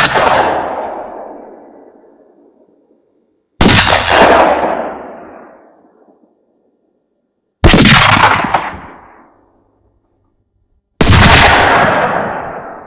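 Rifle shots, three in all, one every three to four seconds. Each is followed by a long fading echo, and the opening second holds the dying tail of an earlier shot.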